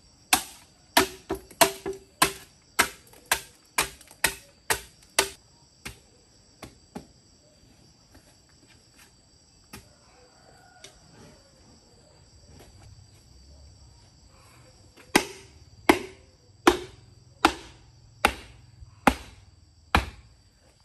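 Knife chopping on a cutting board: a run of quick strikes, a few scattered ones, a pause of several seconds, then seven more evenly spaced strikes near the end.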